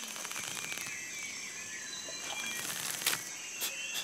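Rainforest ambience: a steady high insect drone with birds chirping and whistling in short glides, and a few sharp clicks near the end.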